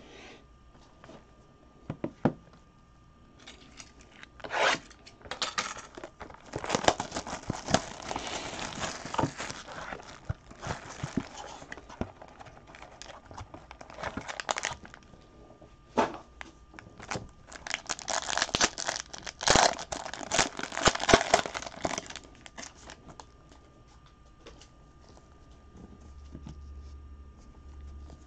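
Plastic and foil packaging on a trading-card box crinkling and tearing as it is unwrapped and opened, in irregular bursts with a few sharp clicks.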